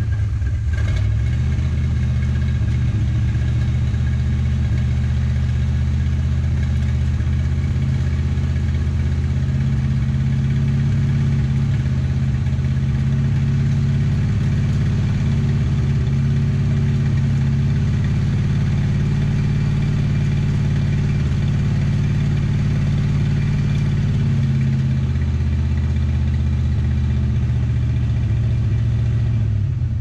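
Buick 455 V8 of a 1972 GS 455 idling steadily just after a cold start. Its pitch shifts slightly about ten seconds in and again near the end.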